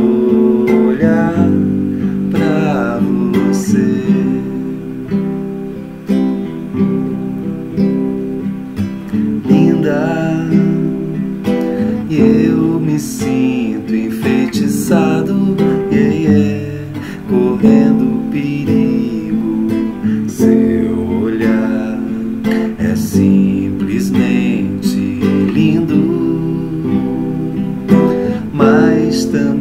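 Acoustic guitar strummed in a steady chord accompaniment, with plucked notes between the strokes.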